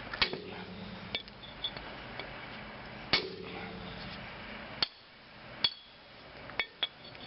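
Hammer blows on a hatchet set against the welded seams of a steel transformer case, splitting the welds to break the case open. There are sharp metallic clanks a second or more apart, the heaviest ones ringing briefly.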